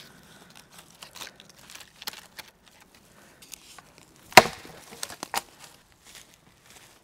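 Dead wooden sticks knocking and cracking: scattered light clicks, then one sharp crack about four seconds in, followed by two smaller knocks.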